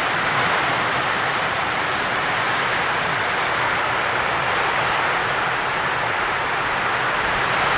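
Monsoon rain pouring down, a steady even hiss that doesn't let up.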